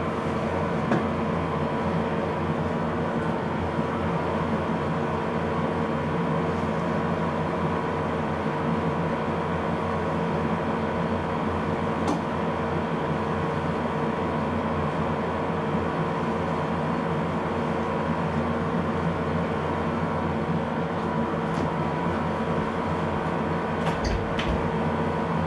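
Steady mechanical hum of a running room appliance, with a few fixed tones over a hiss. A couple of faint clicks come near the end.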